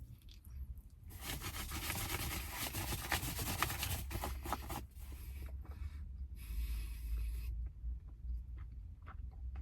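Rustling and scraping handling noise, in two stretches, with a few soft clicks near the end.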